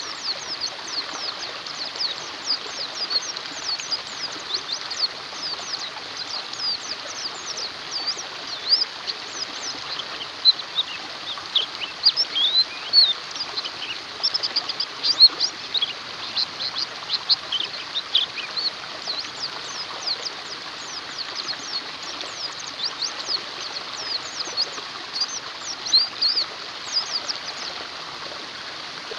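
White-eyes (pleci) twittering: many quick, high chirps, busiest in the middle, over a steady hiss of running water.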